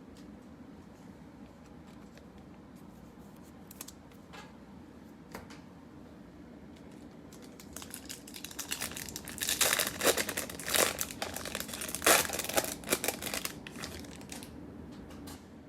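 A Topps Chrome trading-card pack wrapper being torn open and crinkled: a few light clicks at first, then dense crinkling and tearing from about eight seconds in until shortly before the end.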